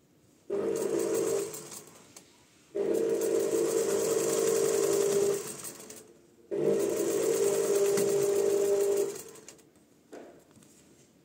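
Domestic sewing machine stitching in three runs: a short one of about a second, then two of about two and a half seconds each, with short pauses between them.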